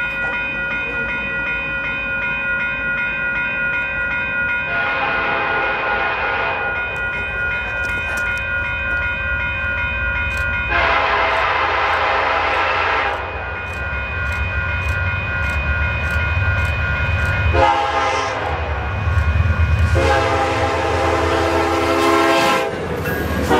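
Union Pacific 1995, an EMD SD70ACe diesel locomotive, sounds its horn in the grade-crossing pattern: a long blast, another long blast, a short one and a final long one. The engine's rumble and the wheels on the rails grow louder as it draws level near the end.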